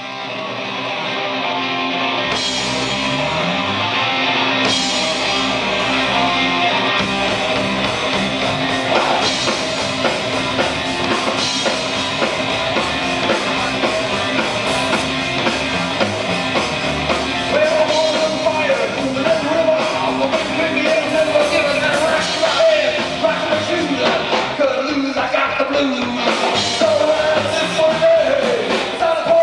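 Live psychobilly band playing: upright double bass, hollow-body electric guitar and drum kit, with a man singing lead. The sound fades in at the very start.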